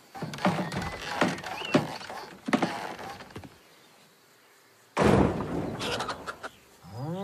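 Cartoon sound effects: a run of knocks and thuds at a wooden door, then a sudden loud noisy burst about five seconds in, and a rising pitched tone near the end.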